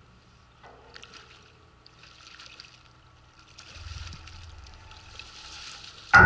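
Faint splashing in the water as a hooked fish thrashes at the surface and is scooped into a landing net. Loud music starts abruptly near the end.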